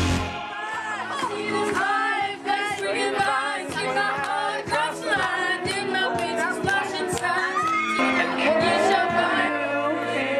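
Karaoke backing track with young teens singing along into handheld microphones, their voices amplified over the music.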